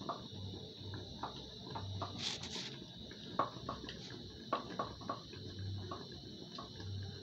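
Knife and fingers working cut dough pieces on a wooden board: scattered light taps and knocks, with a brief scrape about two seconds in.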